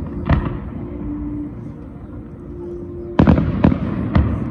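Fireworks exploding: a single bang about a quarter second in, then a run of three louder bangs about three seconds in.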